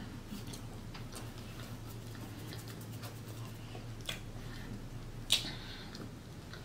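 Chewing a mouthful of hamburger: soft wet mouth clicks and smacks, with two sharper smacks about four and five seconds in, over a steady low hum.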